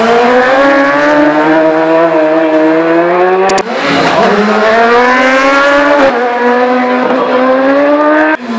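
Racing superbike engines at full throttle, each engine note climbing steadily in pitch as the bike accelerates. The sound cuts abruptly from one bike to another about a third of the way in and again about two-thirds in.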